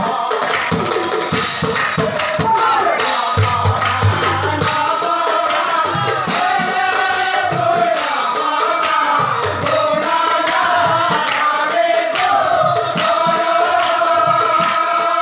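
Nagara Nam devotional singing: a voice sings a wavering melody over nagara drum beats and jingling hand cymbals.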